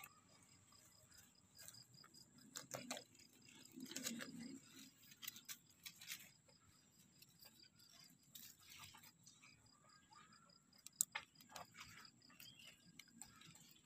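Near silence, with faint scattered clicks and soft rustles, the sharpest click about eleven seconds in.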